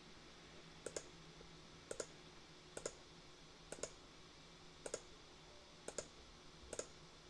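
Computer mouse clicking about once a second, several of them quick double clicks, as copies of a part are dropped one after another.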